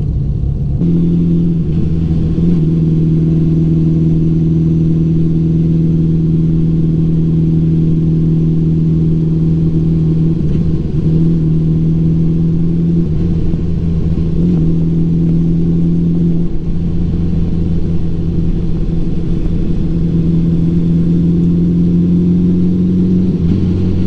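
The flat-four engine of a 1984 Honda Gold Wing Aspencade running at a steady cruise, heard as a low, even hum. Its pitch shifts briefly a few times along the way.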